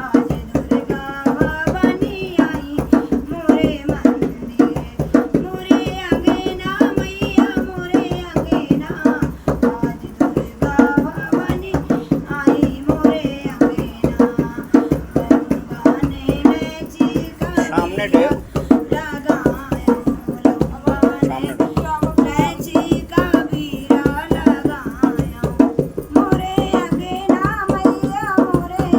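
A woman singing a Hindi devi geet, a devotional song to the Goddess, with drum and percussion keeping a steady, fast beat.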